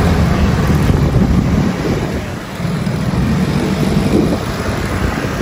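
Wind rumbling on a handheld phone's microphone, over general street and traffic noise.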